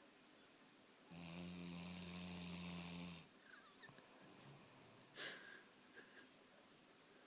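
A sleeping pet snoring: one steady, droning snore starts about a second in and lasts about two seconds. A brief sharp noise comes a couple of seconds later.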